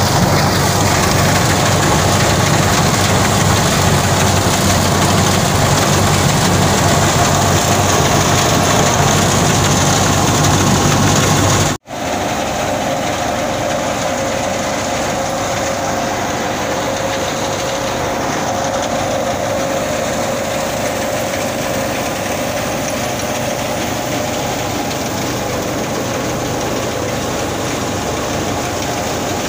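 Tractor-driven wheat thresher running steadily, the engine, belts and threshing drum making a loud, continuous machine noise. It cuts out for an instant about twelve seconds in, then carries on with a steady hum.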